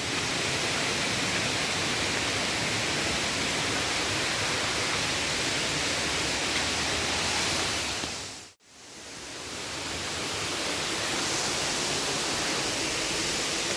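Rushing water of a waterfall and river: a steady, even hiss. It cuts out abruptly about eight and a half seconds in and swells back up.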